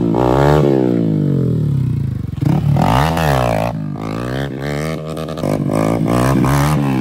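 Hero Xpulse 200's single-cylinder engine through a full-system aftermarket AR exhaust, revved up and let fall several times as the rider pulls wheelies.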